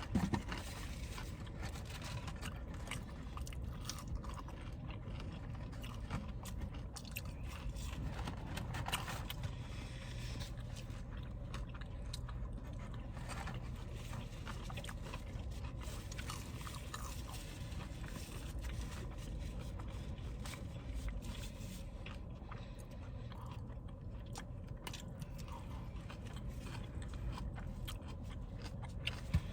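Close-up eating sounds: chewing and crunching on fried food, with small wet clicks of the mouth and scrapes from handling the food, over a low steady rumble.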